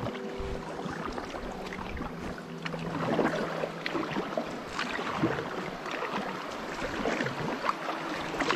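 Packraft paddle strokes: the blades dipping and splashing in the river and water dripping off them, in an irregular run of small splashes.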